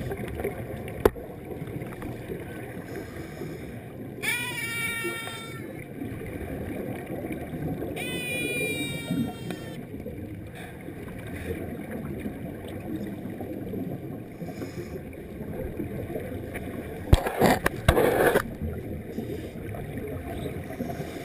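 Underwater sound of a scuba dive: steady rush of water and regulator bubbles, with two short whining tones around four and eight seconds in, the second falling in pitch. A loud gush of exhaled bubbles comes near the end.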